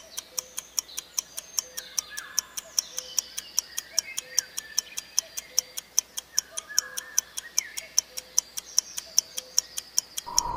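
Clock-style ticking of a quiz countdown timer sound effect, an even tick about four times a second.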